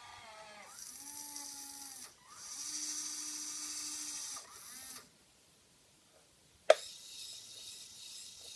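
Small electric gear motors of a Huina 580 RC excavator whining in three bursts of a second or two each, starting and stopping as the machine moves. After a short pause comes one sharp click, the loudest sound, then a faint steady hiss.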